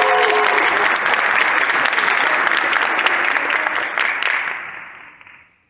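Audience applauding, many hands clapping together; the clapping dies away near the end.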